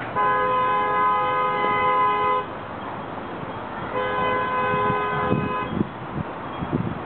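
Air horn of a Genesis P32AC-DM diesel locomotive sounding two blasts of a multi-note chord as it pulls into the station. The first blast lasts about two seconds, and the second comes about a second and a half later, a little shorter. Scattered low thumps follow near the end.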